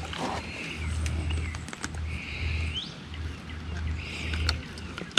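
A high buzzing wild-animal call swelling and fading two or three times, one swell ending in a quick upward sweep, over a steady low rumble. Small clicks run through it from handling a caught bass and tackle, with a sharp click at the very end.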